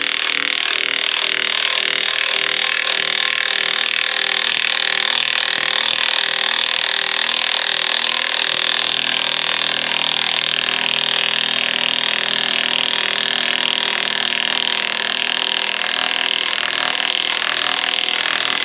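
Craftsman V20 high torque cordless impact wrench, set to speed 3, hammering continuously under load as it drives an 8-inch lag screw into wood without a pilot hole.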